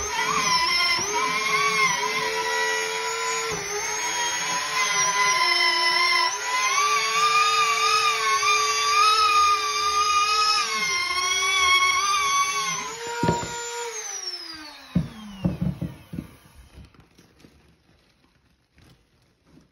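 Handheld power tool cutting into drywall: a steady high motor whine that dips and wavers in pitch under load, then winds down to a stop about 13 to 15 seconds in. Faint pattering of bat guano pellets spilling out of the opening follows.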